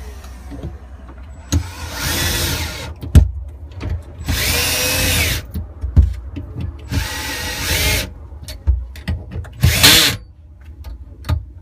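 Power drill-driver running the compression flange bolts down on a pipe fitting in four short runs, its whine rising and falling within each run, with small clicks of the tool and bolts between.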